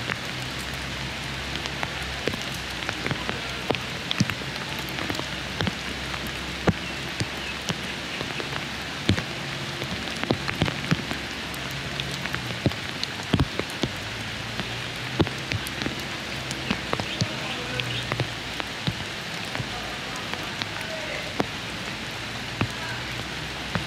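Steady monsoon rain falling, a constant hiss with irregular sharp taps of drops hitting close by.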